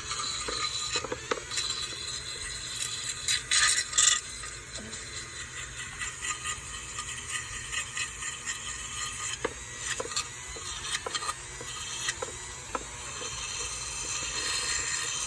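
Scraping and rubbing on rusty metal, typical of hand sanding: irregular strokes, louder for a stretch about three to four seconds in, with scattered light clicks and knocks over a steady low hum.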